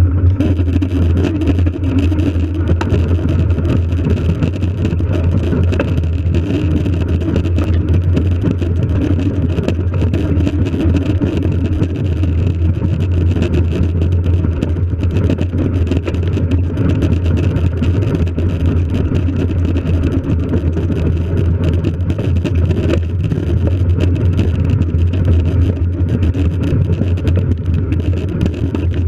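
Fat-tire bike riding across snow: a steady low rumble from the tyre and drive, with noise that holds at a loud level throughout.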